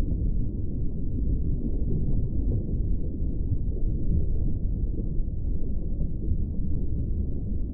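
Steady, muffled low rumble of underwater ambience, with no high sounds in it.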